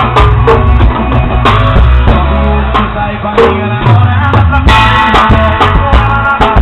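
Drum kit struck with two thin wooden skewers in place of drumsticks, with sharp hits at short intervals over a loud song with bass and pitched instruments.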